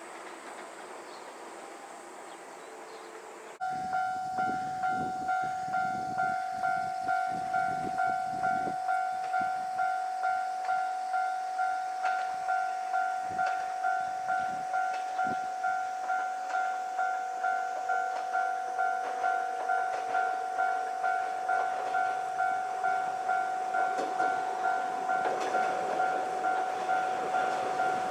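A Japanese level crossing warning bell switches on about three and a half seconds in and rings in even, two-tone strikes about twice a second. Near the end the noise of an approaching train builds up under the bell.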